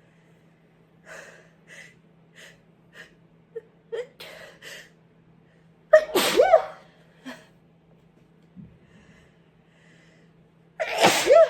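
A sick person's sneezes: a few short, faint sniffs and catching breaths build up, then a loud sneeze about halfway through and a second loud sneeze near the end.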